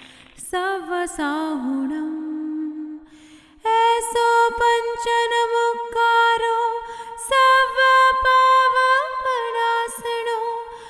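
Music: a female voice sings a slow melody of long, held notes with gliding ornaments, growing louder and higher after about three seconds, over sparse percussive clicks.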